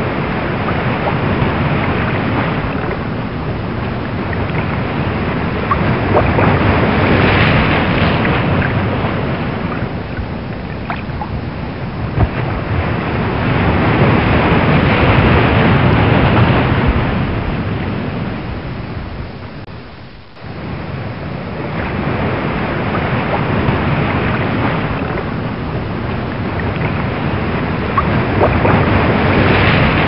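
Ocean waves on a rough open sea: a steady rush of water that swells and eases in slow surges every several seconds. It dips sharply about two-thirds of the way through, then builds again.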